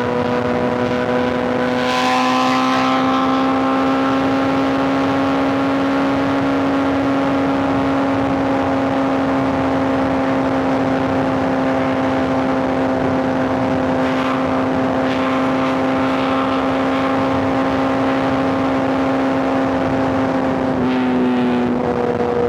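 Sport bike's inline-four engine running at a steady, held speed while cruising, over a steady rush of wind. The pitch steps up a little about two seconds in and drops slightly near the end.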